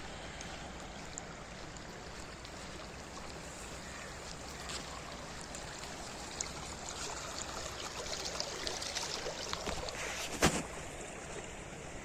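Water running steadily along a narrow concrete irrigation channel, with a single sharp knock near the end.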